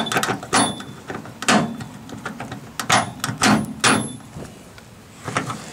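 About six sharp metal-on-metal clinks and knocks, several with a brief ring: a steel carriage bolt knocking against the D-ring bracket and truck bed as it is worked into its square hole.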